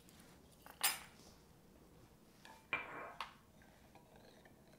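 Kitchen utensils clinking: a single sharp clink of metal measuring spoons about a second in, then a short clatter of a spoon in a glass bowl of marinade around the three-second mark.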